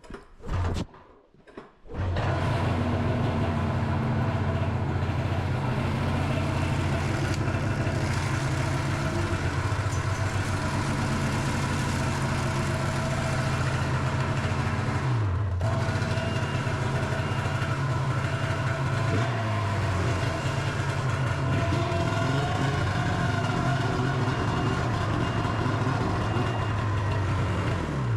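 Snowmobile engine running steadily. It comes in abruptly about two seconds in and dips briefly about halfway through.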